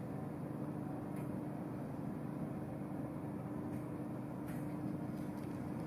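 Steady low hum of a large sports hall's room noise, with one constant low tone under a hiss and a few faint ticks.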